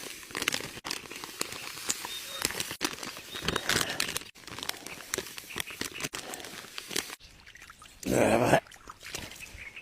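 Dry fishing groundbait being poured and shaken from packets into a bucket: crackling, rustling and pattering of crumbly mix and packaging. About eight seconds in, one short, loud, low voice-like sound.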